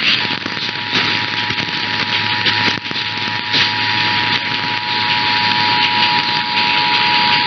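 Emergency Alert System attention signal: the steady two-tone alert (853 and 960 Hz together), starting about a quarter second in and held throughout, under heavy broadcast hiss.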